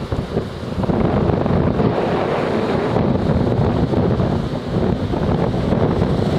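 Strong wind buffeting the microphone over the steady wash of surf breaking on the beach, as a hurricane swell builds.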